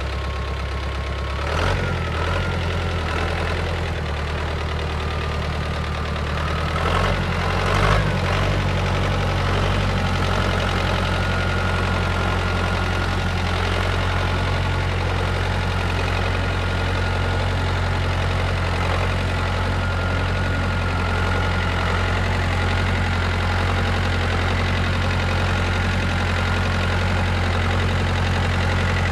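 Small wheeled tractor's diesel engine running steadily as it drives through mud, with a short sharp noise about a second and a half in and a louder one around eight seconds, after which the engine runs a little louder.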